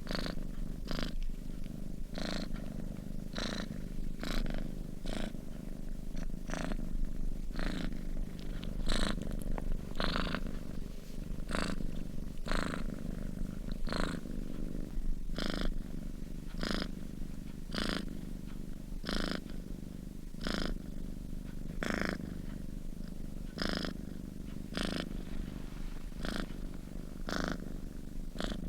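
Domestic cat purring steadily while asleep: a low continuous rumble with a breathy hiss on each breath, repeating in an even rhythm.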